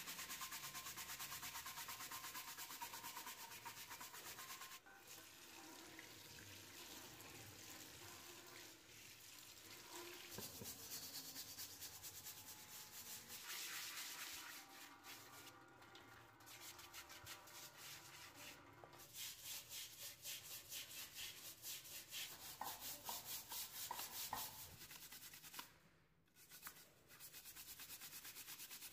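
Stiff bristle brush scrubbing rusty metal parts of an antique bed-warming pan in a basin of wet, foaming cleaning solution, with fast back-and-forth strokes. The strokes pause briefly a few times.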